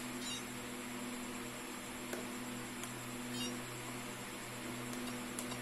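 Steady low hum of room noise, with a few faint clicks as the buttons of a FlySky FS-i6X radio-control transmitter are pressed to step through its menus.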